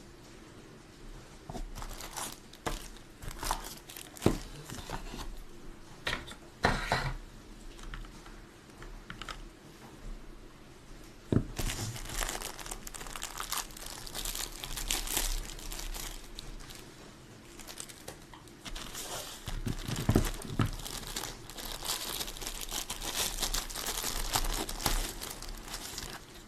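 Packaging crinkling and rustling as it is handled. There are scattered clicks and crackles at first, then a denser stretch of crinkling from about 11 seconds in.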